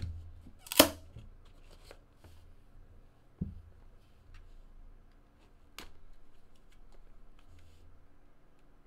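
Cardboard trading-card box being handled and opened: a sharp knock a little under a second in, a duller knock about three and a half seconds in, another click near six seconds, with light rustling and scraping of cardboard between.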